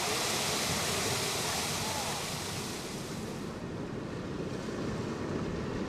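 Ocean surf washing on the shore, with wind buffeting the microphone; the hiss eases a little after about three seconds.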